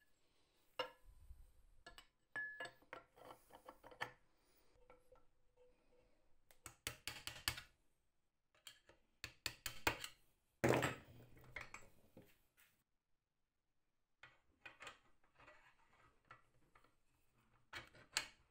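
Metal parts of a potato slicer handled and fitted by hand: scattered clinks, taps and short rattles of steel and aluminium pieces, with a faint metallic ring lingering for a few seconds near the start.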